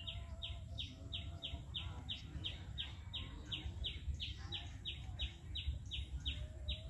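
A bird calling over and over in a fast, even series of short, downward-slurred whistled notes, about three a second.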